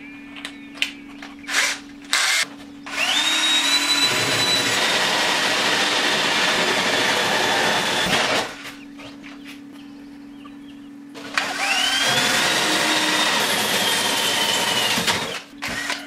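Bosch cordless drill with a diamond hole saw cutting through polystyrene foam: two runs of about five and four seconds, each with the motor whine rising as it spins up and then holding steady. A few clicks and short bursts come first, as the bit is fitted into the chuck.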